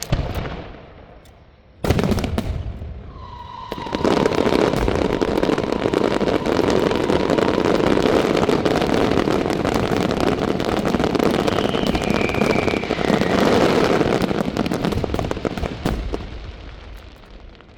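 Large temple fireworks display: a single sharp bang, then a dense, continuous barrage of rapid crackling reports for about twelve seconds with a thin whistling tone over it, dying away near the end.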